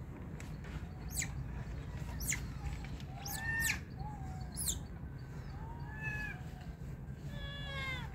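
A string of short animal calls: several high, fast-falling whistles and lower meow-like pitched calls, some in quick pairs, with a longer falling call near the end. A steady low rumble lies underneath.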